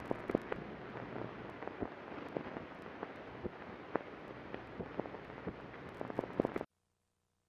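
Steady hiss full of scattered crackles and pops, the sound of rain or old-record surface noise, that cuts off suddenly near the end.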